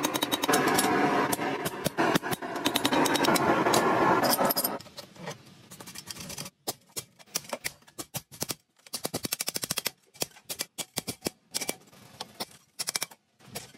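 Hammer blows on red-hot steel at an anvil over a steady roar for the first four or five seconds, then quicker, lighter metallic taps of a hammer driving punches and chisels into the hot steel.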